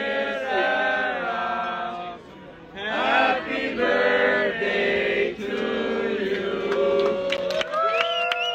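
A group of voices singing a birthday song together in sustained, chant-like notes, with a higher voice rising above them near the end.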